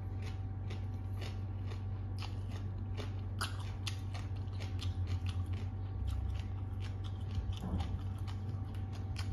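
Close-up chewing of a big mouthful of green papaya salad: a steady run of short, crisp crunches and wet mouth clicks. A steady low hum sits underneath.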